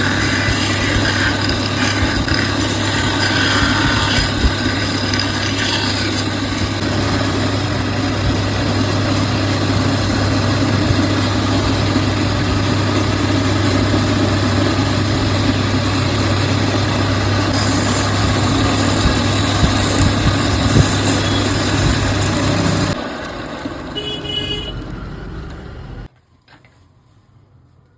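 Electric wood lathe running steadily with a constant motor hum under the noise of the turning work. Near the end it drops off and then cuts out, leaving it quiet.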